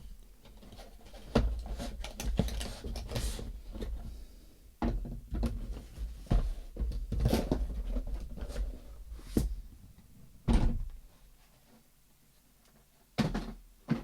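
Scattered knocks, taps and clicks of a small boxed gadget and its packaging being handled on a tabletop. The sounds go quiet for a moment near the end, then come a couple more knocks.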